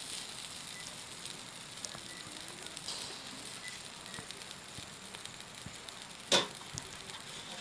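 Whole spice-marinated koral fish (barramundi) sizzling on a charcoal grill: a steady hiss with light crackling, and one sharp knock about six seconds in.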